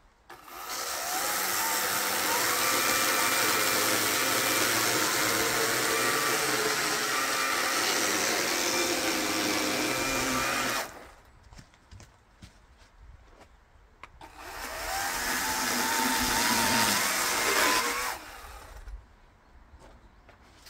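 A power saw cutting through logs in two runs, the first about ten seconds long and the second about four. Its motor pitch dips and climbs as the chain bites into the wood, and it falls almost silent between the cuts.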